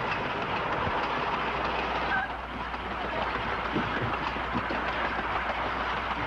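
Railway passenger coach running along the track: a steady rumble with a few faint wheel clicks.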